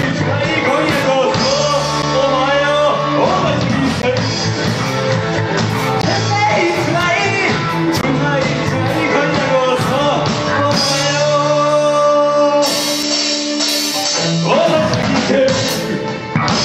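Live rock band playing: a male vocalist singing over electric guitars, bass guitar, keyboard and a drum kit.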